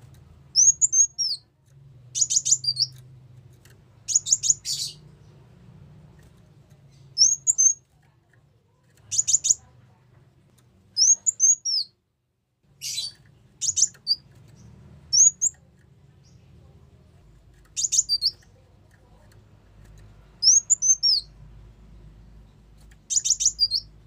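Ruby-cheeked sunbird calling: high, thin chirps that swoop up and then down, alternating with quick stuttering clusters of sharp notes, repeated every couple of seconds over a faint low hum.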